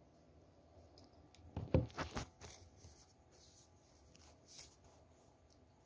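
Faint rustling and scuffing of a kitten moving about on the floor, with a short run of quick scrapes and taps about two seconds in and a few softer rustles after.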